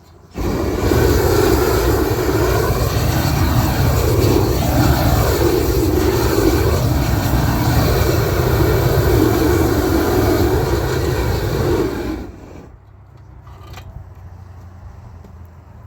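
Gas torch running at full blast, a steady jet-like roar that is lit suddenly and shut off after about twelve seconds, heating a torch-on bitumen (isogam) waterproofing membrane.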